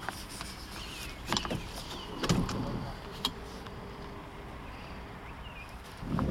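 Clicks, rattles and a few heavier thumps from a car's front seat being handled and moved inside the cabin of a Mitsubishi Colt hatchback, over a low steady hum. The loudest thumps come about two and a half seconds in and again at the very end.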